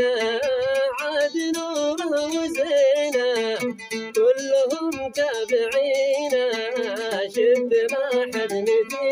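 A man singing a Hadrami mashqasi song in a wavering, ornamented line, accompanied by a plucked string instrument.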